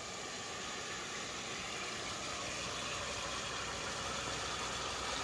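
Pot of fish simmering in gravy on the stove: a steady hiss that slowly grows louder.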